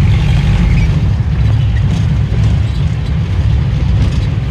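Jeepney under way, heard from inside its passenger cabin: a loud, steady low engine and road rumble.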